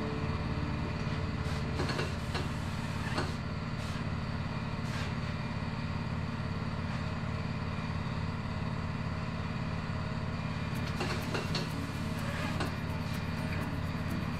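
Tyre changer running with a steady low motor hum as the turntable turns the wheel while the tyre is worked onto the rim. Scattered clicks are heard, more of them near the end.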